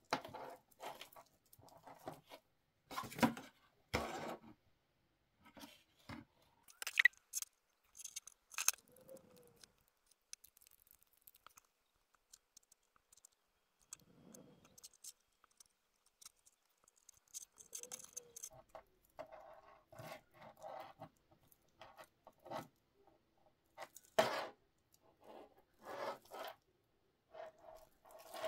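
Hands handling a metal link watch bracelet and its small spring-bar pins while fitting it to a smartwatch case: scattered light clicks, clinks and scrapes, with a quieter stretch in the middle.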